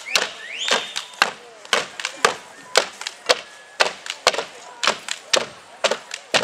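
Wooden dance sticks clacking in a steady rhythm, sharp hits about two to three a second, some in quick pairs.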